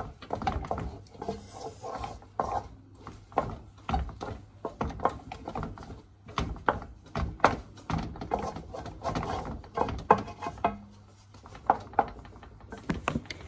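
Wooden spoon scraping and knocking against a metal pot as a thick halwa is stirred hard, in quick irregular strokes.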